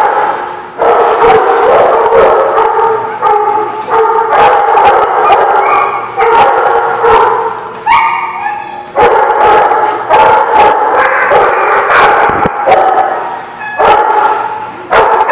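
Several dogs barking and yipping during rough play, the loud barks overlapping almost without a break.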